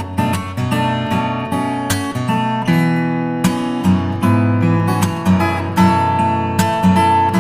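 Background music: acoustic guitar, plucked and strummed in a steady rhythm.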